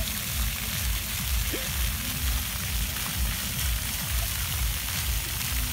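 Fountain water jets spraying and splashing onto wet pavement: a steady hissing spatter, over a low pulsing rumble.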